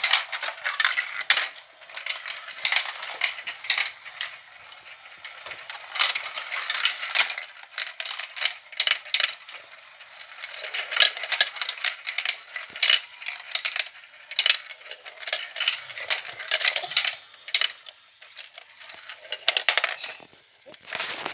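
Marbles rolling and clattering down a plastic VTech Marble Rush track, giving a continuous run of quick irregular clicks that thicken and thin as they pass through the track pieces.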